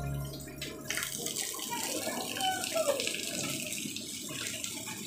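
Steady rain falling and splashing on a wet concrete yard, with a faint voice briefly around the middle.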